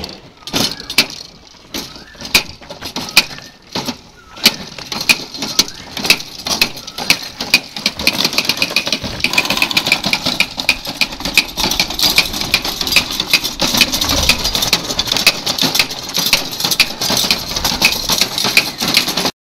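Hand-pushed wheel seed planter (token yantra) rolling over dry soil, its seed drum and spiked wheel clicking and rattling. Sharp clicks come about twice a second at first, then thicken into a fast continuous rattle about eight seconds in.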